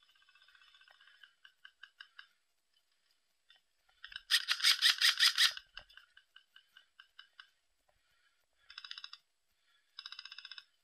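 Airsoft electric guns firing full-auto bursts, a rapid clicking rattle with no bang. The loudest burst, lasting over a second, comes about four seconds in, with two shorter, fainter bursts near the end and scattered single clicks early on.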